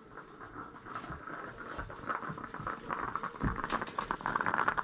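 Fine, rapid crackling and popping from a small wood stove with a coffee pot heating on its top, growing denser near the end. There is a single low thump about three and a half seconds in.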